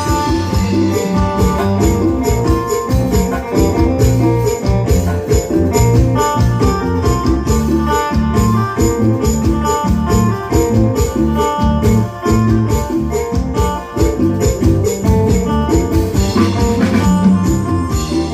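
Music with a steady, fast percussion beat over sustained pitched instruments.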